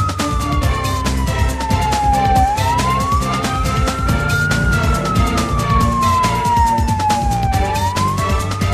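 Building fire alarm siren sounding a slow up-and-down wail, each rise taking about two seconds and each fall about three. Background music with a beat plays under it.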